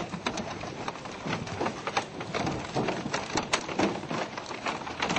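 Fish leaping and splashing around a small boat, with irregular sharp knocks and slaps as they strike the hull and land in the boat.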